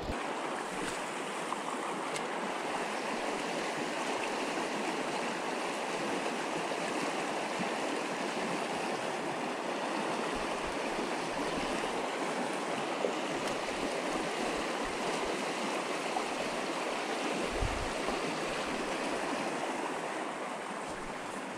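Shallow mountain trout stream rushing steadily over rocks in riffles.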